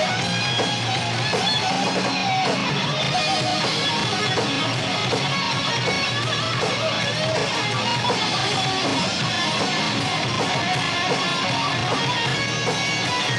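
Live metal band playing without vocals, an electric guitar to the fore over the band, with some bending notes.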